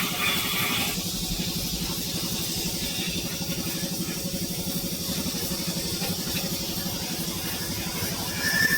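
Electric motor running with a steady hum.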